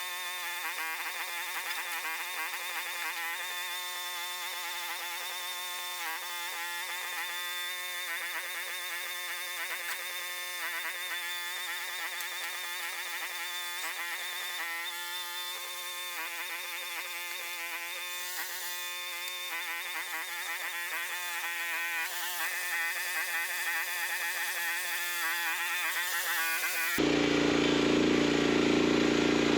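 Steady high buzzing whine of a small quadcopter drone's propellers, its several pitches wavering slightly. Near the end it cuts abruptly to a louder, lower running engine, the mini excavator's motor.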